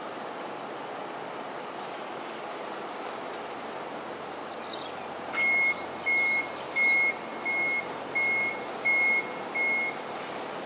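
A vehicle's reversing alarm beeping seven times at one high pitch, evenly spaced about two-thirds of a second apart, starting about halfway in. Under it is a steady hum of traffic.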